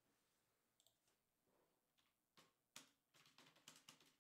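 Faint computer mouse clicks and keyboard typing: a few isolated clicks, then a quick run of keystrokes in the second half.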